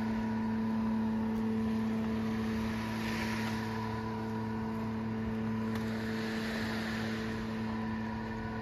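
A steady machine hum holding one constant pitch with several overtones, like an idling engine or a running motor. A soft rush of noise swells over it twice, about three seconds in and again about six seconds in.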